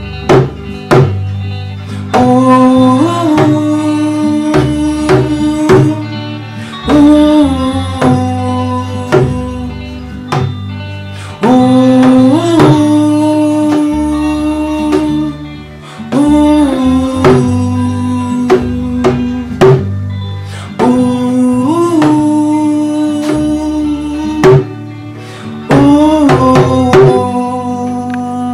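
Song outro: a small djembe-style hand drum struck with the palm in a steady rhythm, over music of long held notes that slide up into each phrase.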